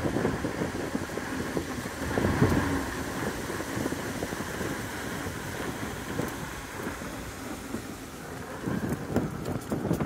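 Wind rushing over the microphone of a moving electric unicycle, with its tyre rumbling and ticking over the boardwalk's wooden planks. Louder gusts near the start and again near the end.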